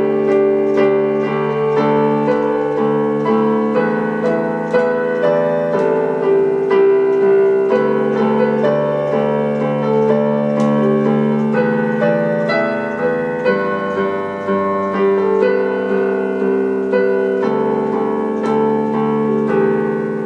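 Background music played on piano or electric keyboard, with a steady run of notes; it begins to fade near the end.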